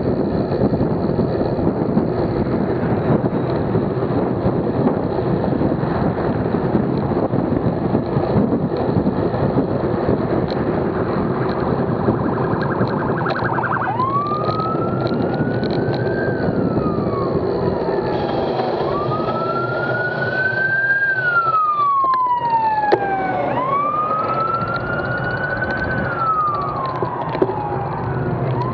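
Steady wind and road rush on a bicycle-mounted action camera. About halfway through, an overtaking British police car's siren starts wailing: a slow rise and fall about every five seconds, three full cycles and the start of a fourth.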